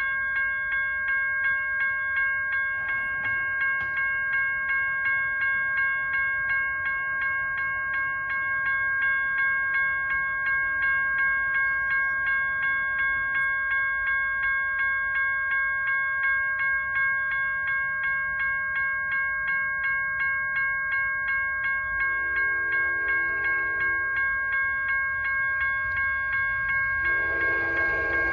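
Railroad crossing warning bells ringing steadily, at about two strokes a second, as the crossing activates. From about 22 seconds in, the horn of an approaching Amtrak train sounds twice under the bells, louder the second time near the end.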